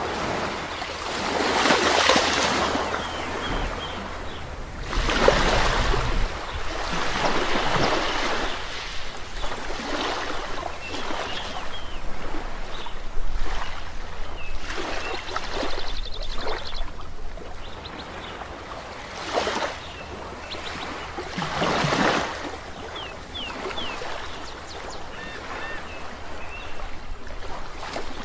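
Sea waves washing onto a shore, each breaking swell rising and falling every few seconds, with small birds chirping faintly over the surf and a quick trill about midway.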